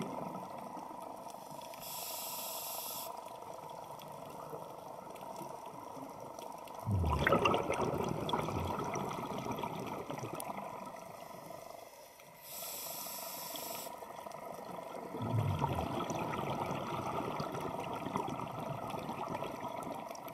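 Underwater scuba breathing through a regulator, two breaths: each starts with a short, high hiss of air drawn through the demand valve and is followed a few seconds later by a longer, louder gush of exhaled bubbles.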